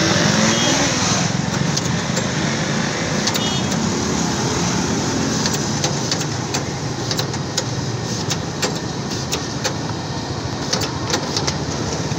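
Raw cut potato sticks being scooped and stirred by hand in a plastic tub, making scattered light clicks that grow busier in the second half, over a steady engine-like drone.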